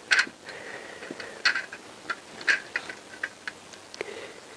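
Light, irregular metal clicks and taps, about seven in all, as steel locating dowels are slid down the cylinder-head studs and seated in the top of a Honda CBR1000F cylinder block.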